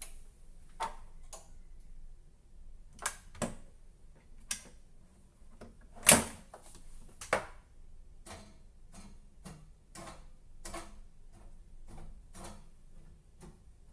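Electric convector radiator's relay clacking on and off again and again, the clac-clac fault that keeps it from heating. About six seconds in comes a single louder click as the power strip is switched off, followed by fainter irregular clicks.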